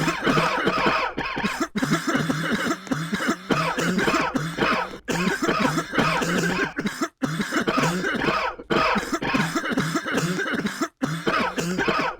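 Repeated coughing, coming in dense fits and broken off abruptly several times.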